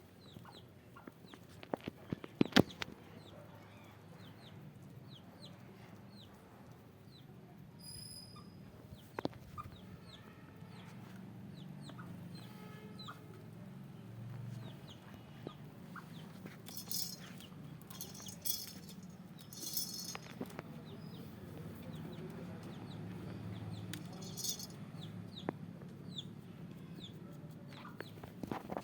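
Chickens clucking in short, scattered calls over a low steady hum, with a few brief rustling bursts in the second half.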